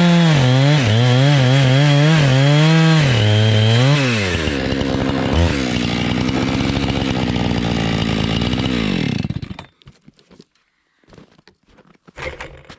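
Two-stroke chainsaw on an Alaskan chainsaw mill cutting through a log, its engine speed dipping and recovering under the load of the cut. About four seconds in it drops to a lower, wavering speed, and about nine and a half seconds in the saw stops abruptly, leaving faint small handling sounds.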